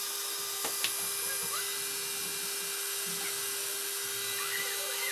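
Handheld hair dryer blowing over a wet watercolor painting to dry it: a steady rushing hiss with a constant motor hum. A single click about a second in, and a few faint high chirps.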